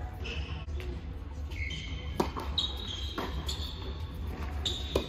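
Tennis ball struck by rackets three times in a serve-and-rally exchange on an indoor hard court, each hit a sharp pop about a second or two apart. Sneakers squeak briefly on the court between the hits, over a steady low hum in the hall.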